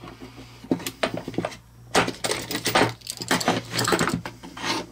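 Small metal hardware and hand tools clinking and clicking as bolts and lock nuts are fastened by hand. The clicks come thick and fast in the second half.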